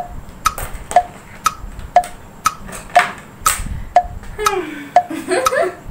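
Clock-style tick-tock from the challenge timer, two ticks a second alternating between a lower and a higher tick. A single louder knock of cosmetics being handled comes about three and a half seconds in.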